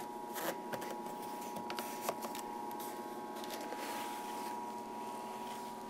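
Retrotec duct-testing fan running steadily at a very low speed, a constant hum with a few faint clicks in the first couple of seconds.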